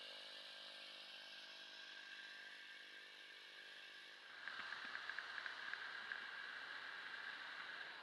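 Light aircraft's propeller engine running steadily with a low hum. About four seconds in, the sound changes abruptly to a louder rushing noise with a high steady whine and light ticks.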